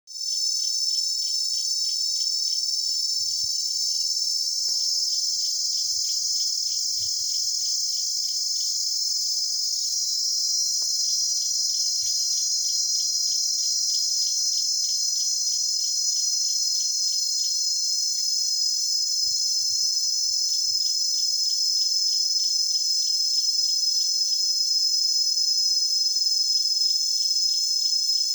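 Dense chorus of cicadas and crickets in summer bush: a steady, high-pitched shrill with a fast, regular pulsing chirp beneath it, fading in at the very start.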